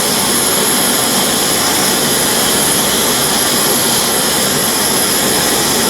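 Ozark Trail 4-in-1 stove's burner running at full blast on a butane-propane canister, a steady hiss of gas and flame with the valve opened all the way.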